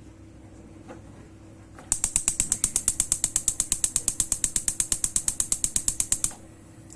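Gas stove burner's spark igniter clicking rapidly, about ten clicks a second for some four seconds, starting about two seconds in, as the burner is lit.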